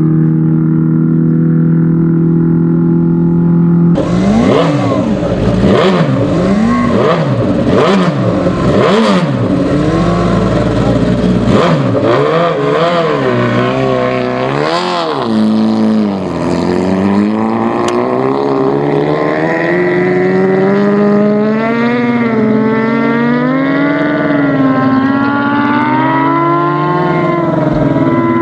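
A 1000 cc partially streamlined land-speed racing motorcycle blipping its throttle in sharp revs about once a second before launch, then accelerating away, its engine note climbing and dropping through several gear changes. A steady engine drone comes first, cut off suddenly about four seconds in.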